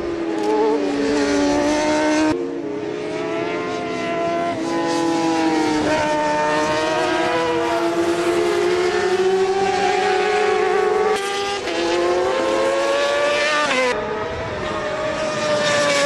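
Racing motorcycle engines at high revs on a circuit, the engine note rising and falling with throttle and gear changes through the corners. The note jumps abruptly about two, eleven and fourteen seconds in.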